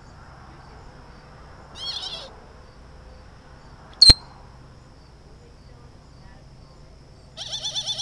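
Birds calling: a short warbling whistle about two seconds in, then near the end a rapid run of harsh, crow-like caws. A single sharp click about halfway through is the loudest sound.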